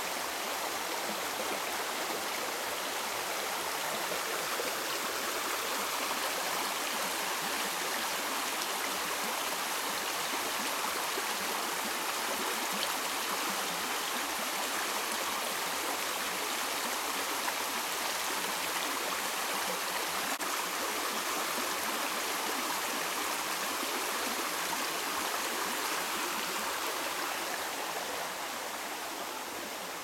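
Shallow forest stream running over stones and gravel, a steady rush of water that fades near the end.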